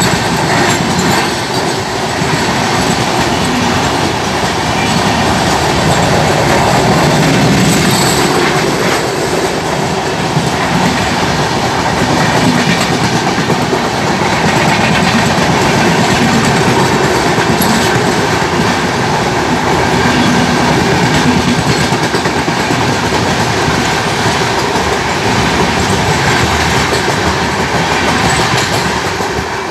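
Two express trains running at speed side by side on parallel tracks, heard from a coach doorway: a steady, loud rumble of wheels on rail, with the clickety-clack of wheels passing over rail joints.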